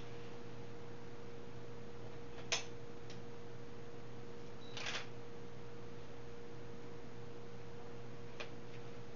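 Three short, sharp clicks a few seconds apart over a steady hum and hiss.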